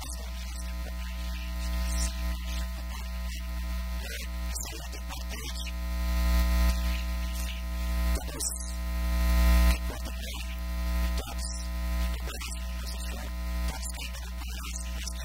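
Acoustic band playing live, with a singer on a microphone, strummed acoustic guitars and a tambourine, under a loud steady electrical hum.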